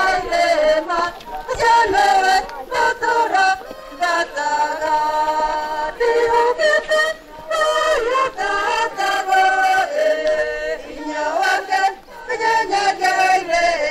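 Choir singing a slow song, its phrases broken by long held notes.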